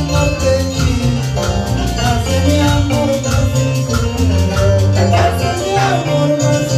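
Latin dance music played live by a band with guitars, amplified through PA speakers, with a strong bass line and percussion.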